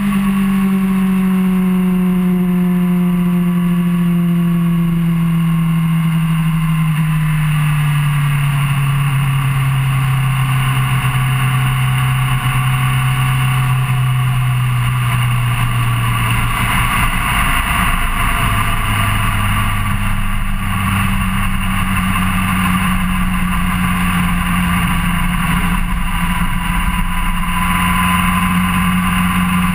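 Suzuki GSR600's inline-four engine heard from an onboard camera while riding at highway speed, under steady wind and road noise. The engine note sinks slowly through the first half as the bike eases off, then steps up in pitch about two-thirds of the way through and holds there.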